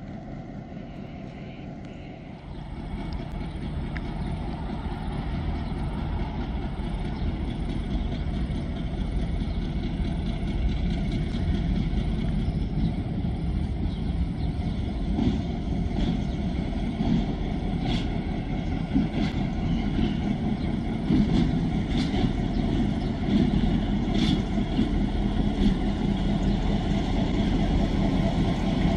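Y class diesel locomotive hauling a mixed train, its engine rumble growing louder from about two seconds in as the train approaches. Sharp clicks and clatter from the wheels on the track come in the second half.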